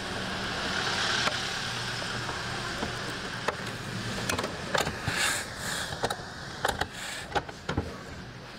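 Steady hiss of cooked rice on the hot plates of an electric nurungji (Korean crispy rice crust) press. In the second half come a run of sharp taps and knocks as more rice is portioned onto the plates and the lid is lowered over them.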